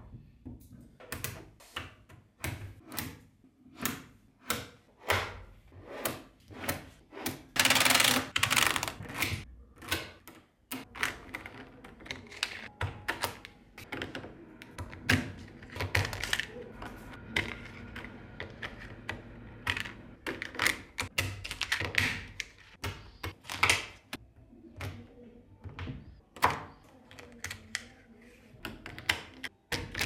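Tiny 5 mm neodymium magnetic balls clicking and clacking as they snap together and are pressed into rows by hand, in quick irregular clicks. About eight seconds in comes a dense rattle of many balls clicking at once.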